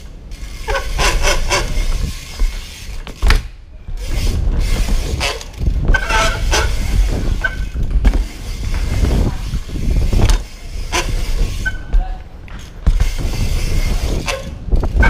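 BMX bike riding the ramps, its tyres rolling and rumbling over the painted ramp surface, with knocks as it hits transitions and lands, and a few short squeaks. Wind buffets the helmet-mounted microphone with a steady low rumble.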